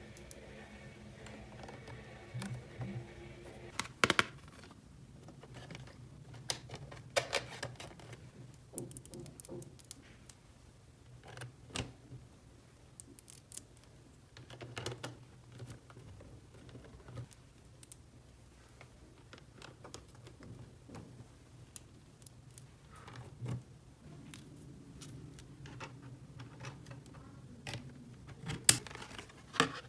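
Irregular light clicks and taps of small toy pieces being handled and set down, over a faint steady low hum.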